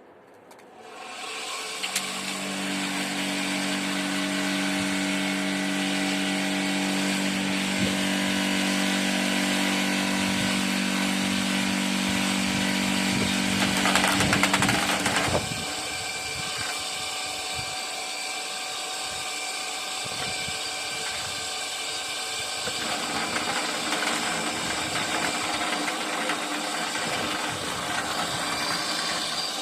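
Homemade vibrating table driven by a washing-machine motor, its pulley unbalanced by a bolt screwed into a drilled hole, starting up about a second in and then running steadily with a machine hum. Its sound swells and then changes about halfway through, and it keeps running.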